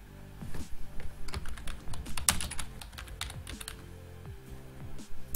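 Typing on a computer keyboard: a quick run of keystrokes starting about a second in and lasting roughly two and a half seconds, with one louder click near the end, over soft background music.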